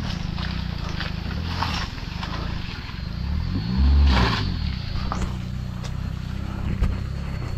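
Maruti Omni van's engine pulling under heavy load up a steep muddy climb, revving up and back down about four seconds in with a loud low swell at the peak. It is being driven hard enough that the clutch plate is burning.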